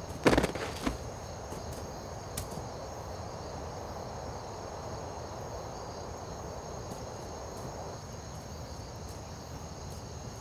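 Crickets chirping steadily, a thin high trill under a low even hiss, with a brief louder noise just after the start.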